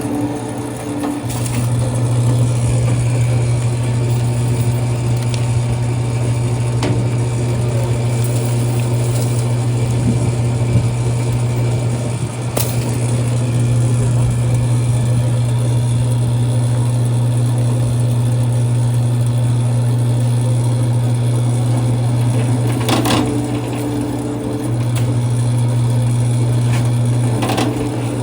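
Electric cable-stripping machine with a 3 hp single-phase motor running with a steady, loud hum, with a few sharp clicks along the way.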